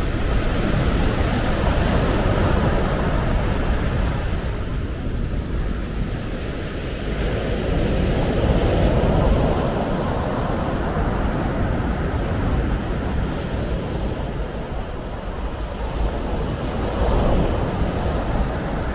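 Sea waves breaking and washing up a pebbly beach, the surf swelling louder a few times, most strongly about halfway in and again near the end. Wind rumbles steadily on the microphone underneath.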